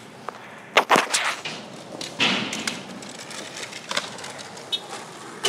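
Skateboard knocks and clacks: a quick cluster of sharp hits about a second in, then a short scraping hiss of wheels or board a little after two seconds and a small click later.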